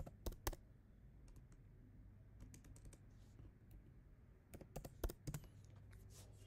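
Computer keyboard keystrokes: a few separate clicks near the start, scattered taps, then a quick run of keystrokes about five seconds in, over a faint low hum.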